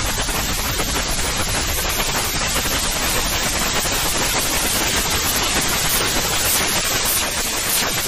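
Steady white noise played as a sleep aid: an even, unchanging hiss with no rhythm or tone in it.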